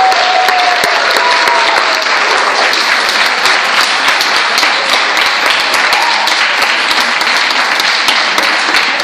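Audience applauding steadily, many hands clapping at once, with no break.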